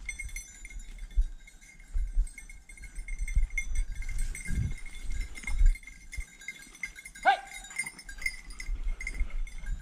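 A hunting dog gives a single short bay about seven seconds in, heard at a distance over low rumbles.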